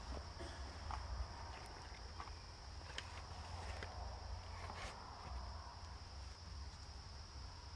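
Woodland ambience: a steady high-pitched insect drone, with soft scattered footsteps and crackles on the forest floor over a low rumble.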